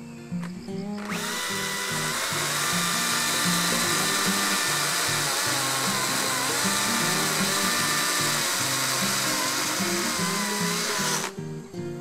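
Electric chainsaw cutting through a Chinese tallow tree's trunk near the ground, its motor whine wavering in pitch as the chain bites into the wood. It starts about a second in and stops abruptly near the end, over quiet background guitar music.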